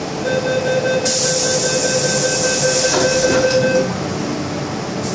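MTR M-Train passenger doors closing: a steady warning tone sounds for about three and a half seconds, a loud hiss comes in about a second in, and the doors knock shut about three seconds in.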